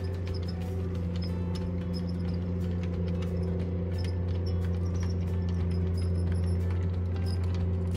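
00 gauge model diesel locomotive on DCC running slowly with a train of wagons: a steady low engine drone, with light irregular clicks of the wheels over the track.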